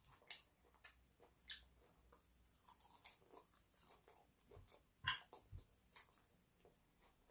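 Faint chewing of a mouthful of mixed salad leaves: scattered short clicks and crunches, the loudest about a second and a half in and again about five seconds in.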